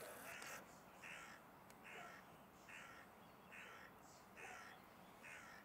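A bird giving a regular series of short harsh calls, about seven in all, a little under a second apart.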